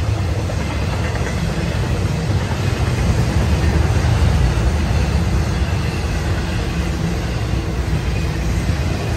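Florida East Coast Railway intermodal freight cars rolling past at speed: a steady low rumble of wheels on rail.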